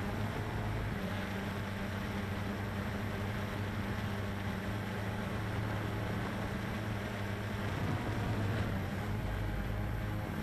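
CX-20 quadcopter's electric motors and propellers droning steadily in flight, the pitch shifting a little about eight seconds in.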